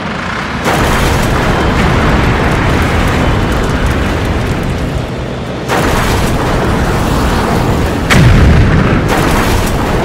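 Battle sound effects of tank cannon fire: a loud, dense rumbling din of booms and explosions that grows louder in steps, with a sharper blast about eight seconds in.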